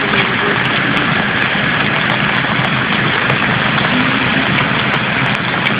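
Steady rushing of a stream in flood, fast muddy water pouring down a street, a loud, unbroken noise.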